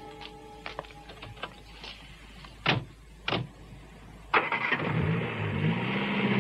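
Two car doors slam shut, a little over half a second apart. About four seconds in the car's engine starts, its revs rising and then settling into a steady run.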